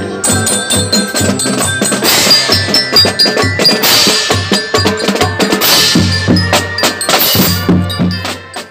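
Marching drum band playing: drums beating a quick, dense rhythm under low sousaphone notes and bright ringing bell-like notes. The band fades out near the end.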